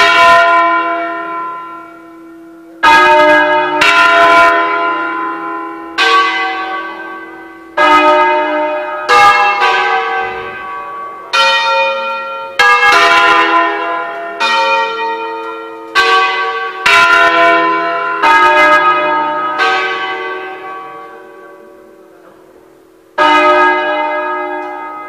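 A tuned set of church tower bells rung in a solemn concerto: about twenty single strokes on bells of different pitch follow one another unevenly to form a melody, each ringing on and fading, with a longer pause before one last stroke near the end.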